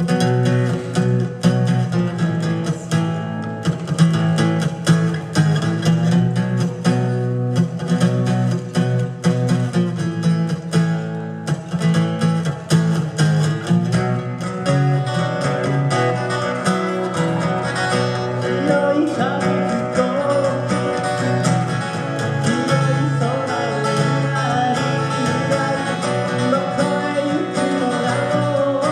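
Live acoustic guitar duo playing: steady rhythmic strummed chords, with a bending lead melody line joining about halfway through.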